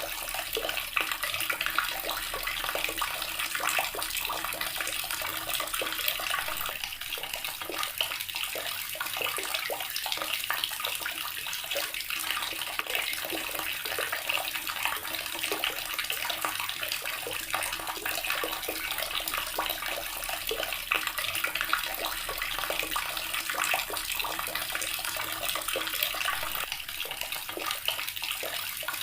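Water running steadily from a tap, a continuous splashing rush that holds an even level throughout.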